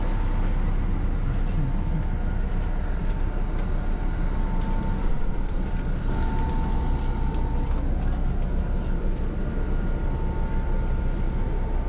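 Steady rumble of a double-decker coach bus's engine running, heard from inside the upper-deck cabin, with a faint high whine that comes and goes.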